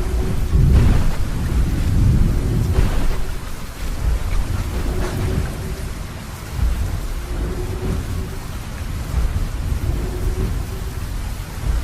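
Thunderstorm sound effect: steady rain with deep rolling thunder, the rumble heaviest in the first few seconds.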